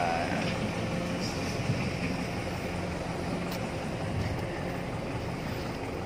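Case Super L backhoe loader's diesel engine running steadily, heard from the machine.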